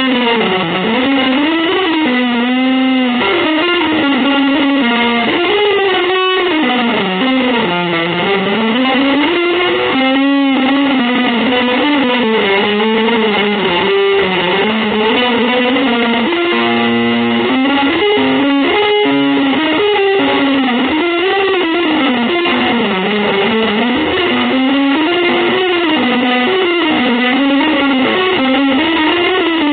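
Electric guitar playing a continuous improvised melodic line, its notes sliding and bending up and down with few breaks.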